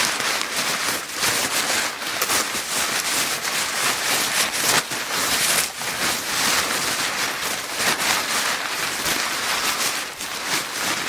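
Paper bag crinkling continuously, a dense crackle of fine irregular rustles that swells and eases every second or so.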